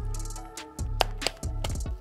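Background music with a beat: deep bass notes and sharp percussive hits.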